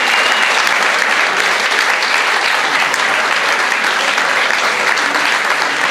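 Crowd applauding, a dense, steady clapping.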